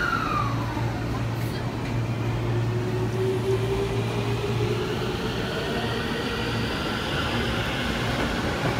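Electric commuter train pulling away from the platform: the whine of its traction motors and inverter rises slowly in pitch as it picks up speed, over a steady low hum. A high tone glides down in the first second.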